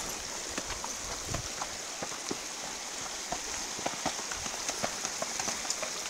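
Horses' hooves walking on a loose stony trail: irregular crunches and clacks of shod hooves on gravel and rock, over a steady hiss.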